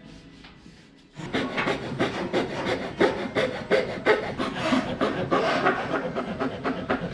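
Rapid, even scraping strokes of a hand tool working wood, starting about a second in.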